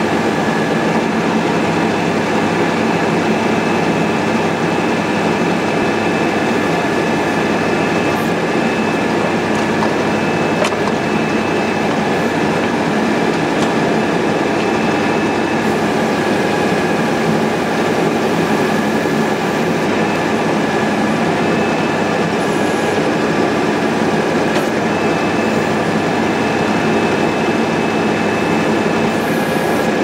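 Mahindra tractor's diesel engine running steadily under load, driving the hydraulics of a Titan BK215 three-point backhoe as it digs, with a steady high whine over the engine noise.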